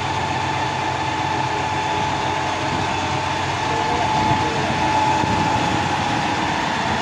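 Container reach stacker's diesel engine running steadily, with a constant high whine over the low drone.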